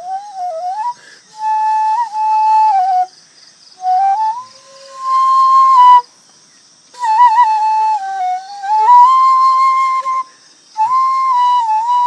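Bamboo flute played solo: a slow melody in short phrases with pitch slides and quick ornamental wavers, broken by brief pauses for breath.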